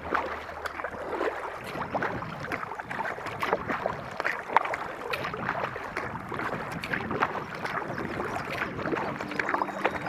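Kayak paddle strokes in calm water: a continuous patter of small, irregular splashes and drips as the blades dip in and come out.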